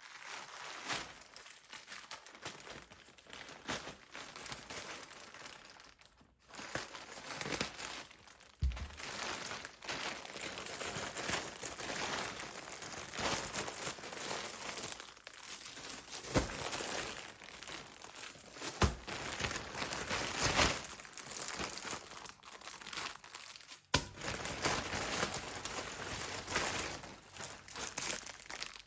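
Plastic packaging crinkling and rustling as it is handled and opened, with a few soft knocks.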